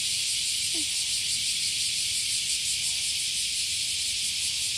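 Cicadas buzzing in a dense chorus, a steady high-pitched drone.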